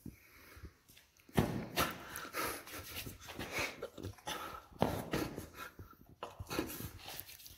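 A man's voice making breathy, non-speech mouth sounds in irregular sharp bursts, the strongest about a second and a half in and again near five seconds.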